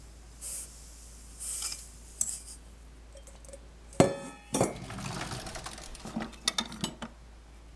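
Soft hiss of sugar being poured from a stainless steel bowl onto grated apples. About four seconds in comes a sharp metallic clank that rings briefly, then utensils clattering and clinking as a kitchen utensil drawer is rummaged through.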